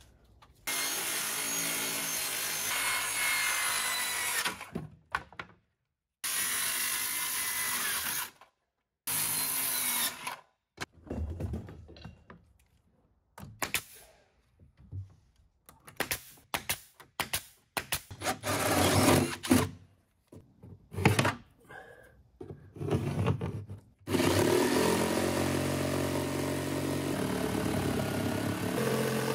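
Power tools working wood in several short runs, with sharp knocks and taps between them. In the last five seconds a corded jigsaw cuts steadily through wooden board siding.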